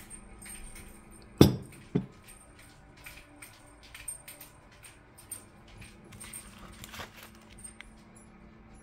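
A spoon clinks and scrapes against a glass jar and a stainless steel pot as red palm oil is scooped in, with many light ticks scattered through. About a second and a half in come two loud, short sharp sounds half a second apart, the first the louder.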